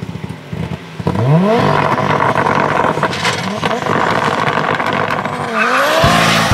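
Audi Quattro Sport race car's turbocharged five-cylinder engine revving hard as the car launches with its tyres spinning, the pitch sweeping up about a second in and staying loud with sharp crackles from the exhaust. Rock music cuts in near the end.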